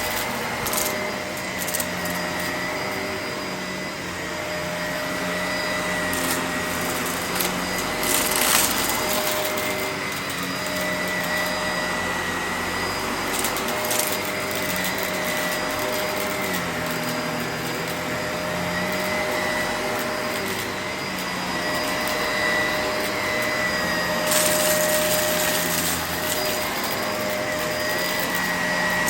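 Vacuum cleaner running steadily, its motor giving a steady whine over a rushing hiss. A few short clicks and rattles come through along the way.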